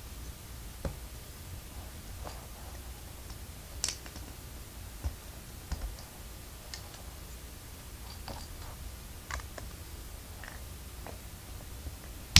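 LEGO plastic pieces clicking and clacking at an irregular pace as they are handled and pressed together, over a steady low hum.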